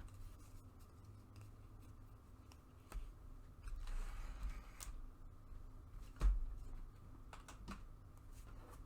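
Trading cards and packs being handled on a table: scattered light clicks and taps, a brief rustle about four seconds in, and a soft thump a little after six seconds.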